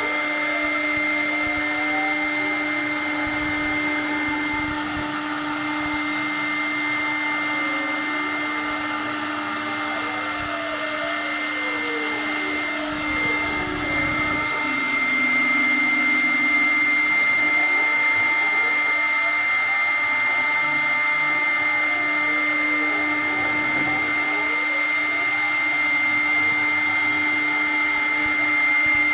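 Pacer Cadet 1200 CNC router running a 3D machining job: the 1.1 kW spindle runs steadily at high speed with a constant whine, while the axis motors whine in pitches that rise and fall over and over as the gantry speeds up and slows down.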